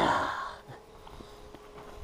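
A man's breathy exhale trailing off over the first half-second, then a quiet stretch with a faint steady tone.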